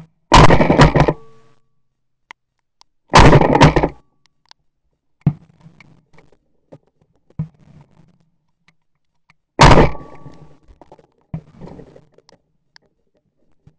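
Three loud shotgun shots: two about three seconds apart, then a third about six seconds later, with light clicks and knocks from the gun between them.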